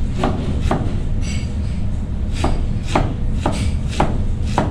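Kitchen knife chopping through a head of cabbage onto a cutting board, about eight crisp cuts at an uneven pace, over a steady low rumble in the background.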